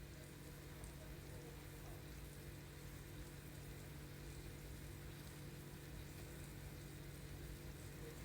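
Food cooking in a pot with a faint, steady, crackly sizzle, over a low steady hum.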